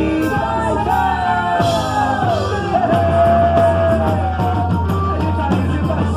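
Loud band music with a singer's voice holding and sliding between long notes over a steady bass line and drum beat.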